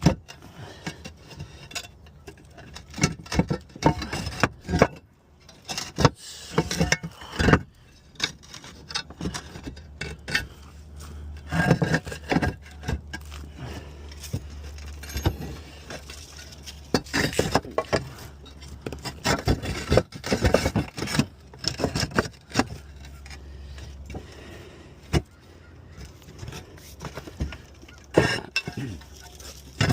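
Roof tiles being handled: irregular hard clinks, knocks and scrapes as tiles are lifted, shifted and set against each other.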